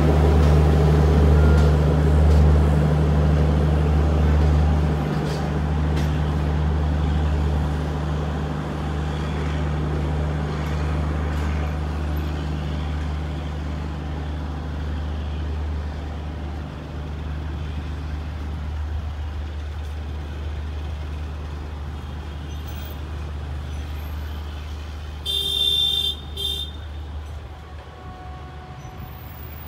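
Express passenger train rolling past and pulling away on the rails: a steady low rumble and hum that slowly fades as it recedes. A brief horn toot sounds near the end.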